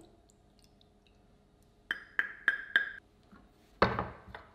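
Four quick ringing clinks, about three a second, as a stainless steel measuring cup is tapped on the rim of a glass mixing bowl to knock out the last of the coconut milk. Then a single dull knock as a tin can is set down on a wooden cutting board.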